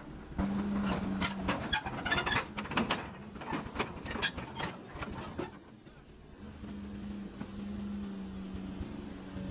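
Sany SY215C hydraulic excavator running, its diesel engine giving a steady hum under a quick run of metal clanks and knocks. The knocks stop about five and a half seconds in, and the engine hum carries on alone near the end.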